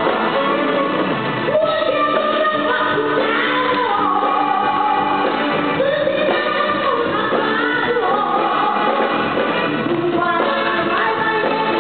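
A woman singing a pop song live into a handheld microphone over musical accompaniment, amplified through a stage sound system, with her voice gliding and holding notes.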